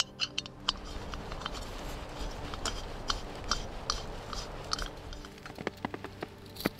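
Irregular crunching and crackling clicks, some sharper than others.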